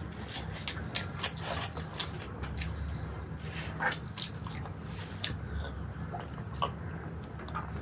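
Close-up eating sounds: wet chewing and lip smacks of rice and curry eaten by hand, with many short irregular clicks of fingers scooping food on a stainless steel plate.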